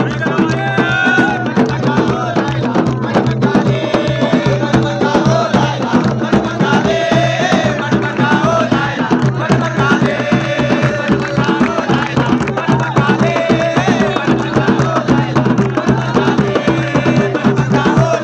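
Live folk drumming on a strapped dhol and a large mugarman drum, beaten in a fast, steady rhythm, with a group of voices singing or chanting over it.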